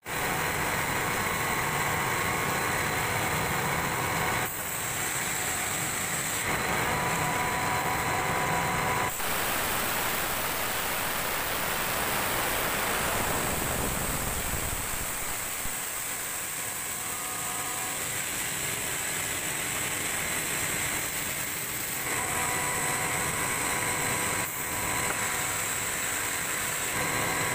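CKE 18-inch, 185-watt exhaust fan running: a steady rush of air with a faint motor hum, its character shifting abruptly a few times.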